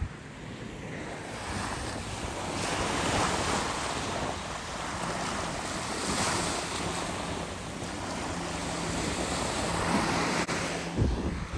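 Small surf breaking and washing up on a sandy beach, the rush swelling and fading every few seconds, with wind buffeting the microphone. A faint distant engine hum comes in during the second half.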